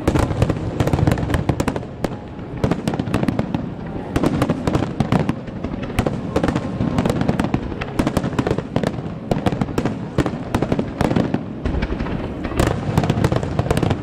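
A dense barrage of aerial firework shells bursting in rapid succession: many sharp bangs overlapping one another without a pause, with crackling among them.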